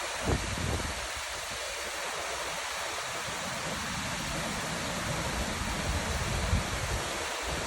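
Waterfall: a steady rush of falling water, with a few low bumps underneath, the strongest about a third of a second in and at about six and a half seconds.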